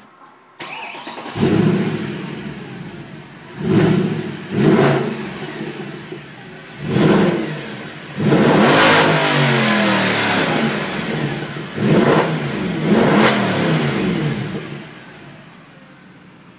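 Mercedes C63 AMG's V8 exhaust as the engine starts about half a second in. The stationary car is then revved in about seven sharp blips, one held for a couple of seconds in the middle, before it settles back toward idle near the end.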